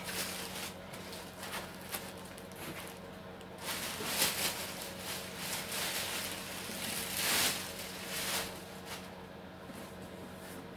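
Clear plastic wrapping rustling and crinkling as a small electronic unit is lifted out of its cardboard box and handled, loudest about four seconds in and again about seven seconds in.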